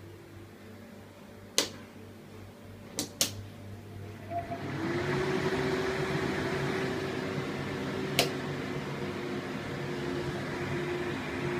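Pacific PR-90 kitchen exhaust hood: a few sharp switch clicks, then about four and a half seconds in its mixed-flow fans start up into a steady rush of air with a motor hum that rises slightly in pitch and settles. Another single click comes a few seconds later while the fans keep running.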